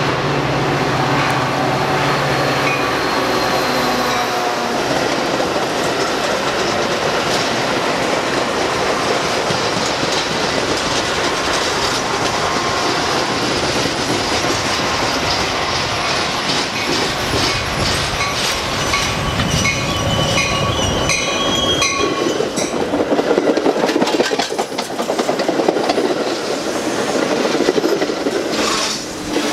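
Metra diesel commuter train passing close by. The locomotive's engine drone fades after the first few seconds, then the bilevel gallery coaches roll past with steady rail noise, a run of wheel clicks over rail joints and some high wheel squeal.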